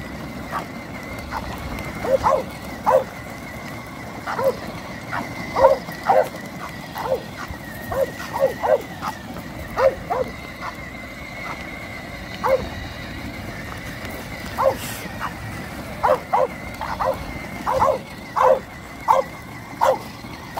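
Bulldog giving short, sharp barks and yips at irregular intervals, often two or three close together, with a lull of a few seconds past the middle. Beneath them runs the steady high whine of a battery-powered ride-on toy car's electric motor, with its wheels rolling over gravel and grass.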